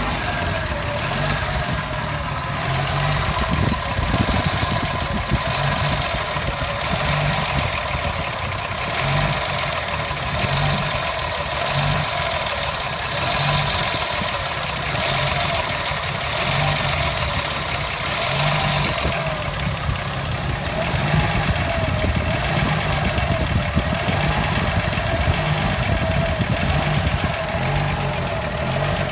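Toyota FJ60 Land Cruiser's 2F inline-six petrol engine idling roughly, with an uneven beat that pulses about once a second. A hiss pulses in time with it and fades out about two-thirds of the way through.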